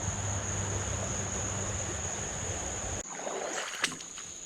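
Outdoor creek ambience: a steady rushing noise under a thin, steady, high-pitched insect drone. The rushing drops away abruptly about three seconds in, leaving the insect drone, and a single sharp click follows shortly after.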